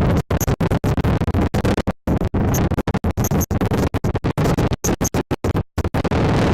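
Helmet-camera audio of a quad ride, engine and rushing noise chopped by dozens of brief dropouts into an irregular stutter, cutting in and out many times a second and steadying again near the end.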